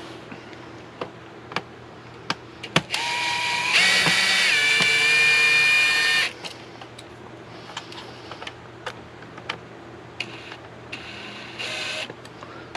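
A power driver backs screws out of a plastic modem case. Its motor whines for about three seconds, about three seconds in, stepping up in pitch and then holding. A second short run comes near the end, with sharp clicks of handling between.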